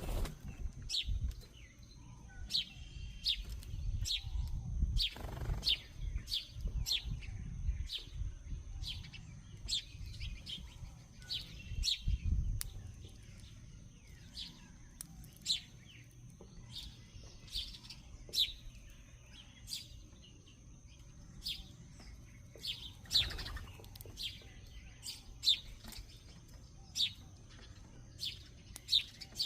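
A bird calling over and over with short, sharp chips, about one a second, over a low rumble that is heavier in the first half.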